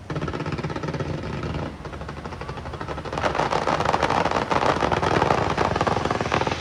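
Fireworks crackling: a dense, rapid rattle of many small pops that grows louder about three seconds in.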